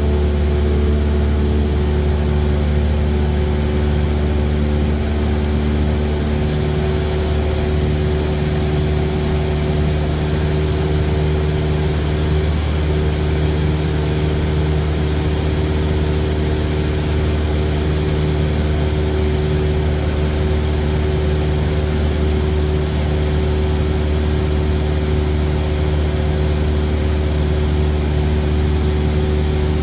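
Light propeller airplane's engine and propeller droning steadily during a climb, heard from inside the cabin.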